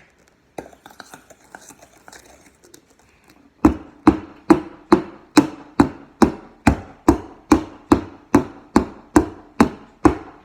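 A cake pan full of batter being banged down on the counter in a steady run of about sixteen knocks, a little over two a second, starting about three and a half seconds in, to knock the air bubbles out of the batter. Fainter handling clicks come before it.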